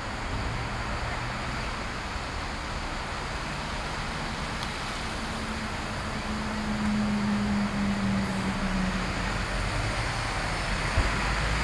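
City bus engine running at a stop, a low steady rumble, with a steady hum for a few seconds in the middle and growing louder near the end.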